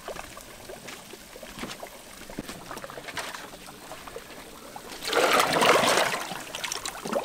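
Plastic crates pushed down into a pool of water: a loud splashing and sloshing about five seconds in that lasts about two seconds.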